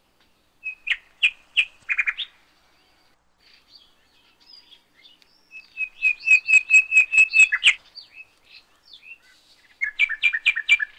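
A bird chirping: short high chirps in three bouts, the middle one a fast even run of about eight chirps, the last a quick run of paired notes near the end.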